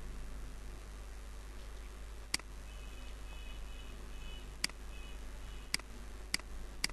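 Computer mouse clicking: five sharp single clicks, spaced unevenly and coming closer together near the end, over a steady low electrical hum.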